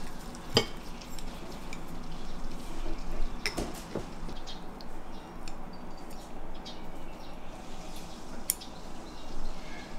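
Wooden chopsticks give a few light clicks against ceramic dishes as a steamed wild-vegetable dumpling is picked up and dipped in chili oil, over a low, steady room hum.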